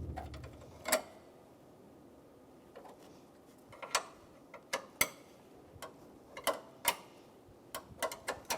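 A wrench working on the hood latch's 10 mm mounting bolts: scattered sharp metal clicks and taps at irregular intervals, more frequent in the second half.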